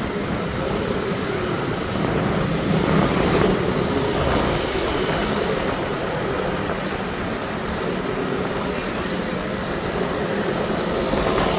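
Motor scooter engines running steadily amid street traffic, heard from a moving motorbike in the flow of traffic. The level is even throughout.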